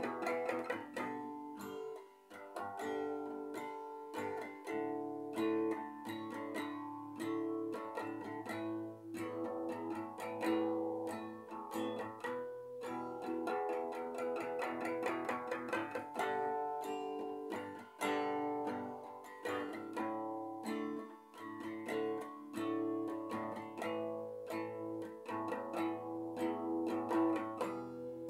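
Acoustic guitar played solo, chords ringing with a steady stream of picked and strummed notes, no singing.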